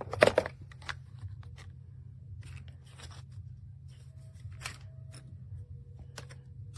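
Handling noise: a cluster of sharp clicks just after the start, then scattered light clicks and rustles, over a steady low hum.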